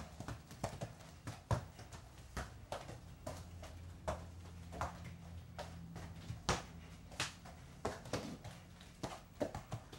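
Bare feet tapping and pushing a soccer ball across a tiled floor: irregular soft knocks and thuds about one or two a second, with a faint low hum underneath.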